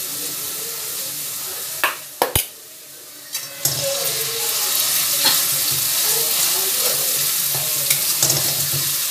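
Onion frying in hot oil with garlic and ginger in a steel kadhai, sizzling steadily as a metal spatula stirs and scrapes it. A few sharp knocks come around two seconds in, and the sizzle dips for about a second before returning louder.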